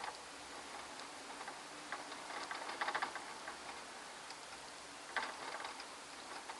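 Light, quick dry clicks and ticks from pet mice in their cage, coming in short clusters about two to three seconds in and again a little after five seconds, over a faint steady hiss.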